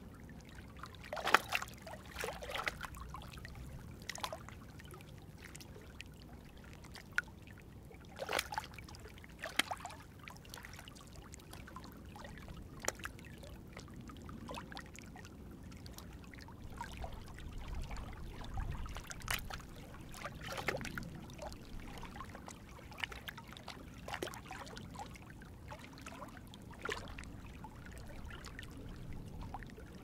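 Small waves lapping against a rocky shore, with irregular splashes every few seconds over a steady low wind rumble.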